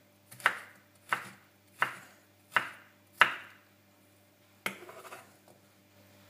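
Chef's knife chopping pear into small cubes on a wooden cutting board: five even strokes, about one every 0.7 s, each a sharp knock of the blade on the wood. A little later comes one more knock with a short rustle as the diced pieces are scooped up.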